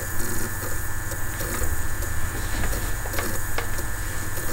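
Steady low hum and hiss of background noise, with a few faint clicks.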